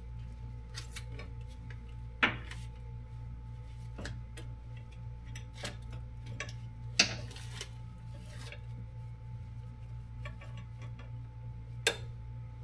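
Scattered sharp metal clicks and knocks of a lever, bushings and hand tools being handled while a skid steer's pedal control lever linkage is fitted, over a steady low hum.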